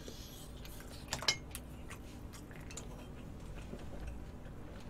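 Chopsticks and tableware clicking and clinking lightly against dishes during a meal, with a couple of sharper clicks about a second in, over a faint room hum.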